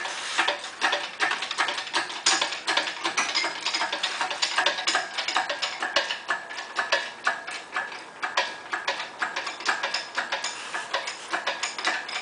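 Quick, irregular metallic clicking and clinking, several clicks a second, from hand tools and metal parts being worked on as an engine is lifted out of a car on a hoist.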